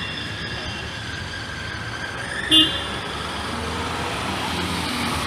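Road traffic on a rain-wet street: a steady rumble and tyre hiss of passing vehicles. A short vehicle horn toots once about two and a half seconds in.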